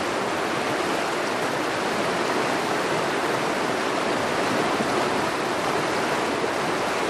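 Fast-flowing river rushing over rocks and rapids: a steady, even rush of water with no break.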